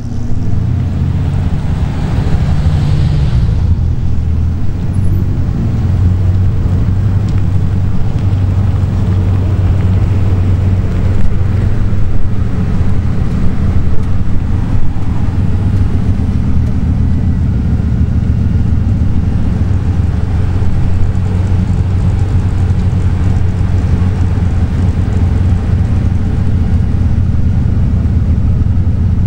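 Bugatti supercar engines running at low revs close by: a deep, steady rumble, with a brief swell about two seconds in.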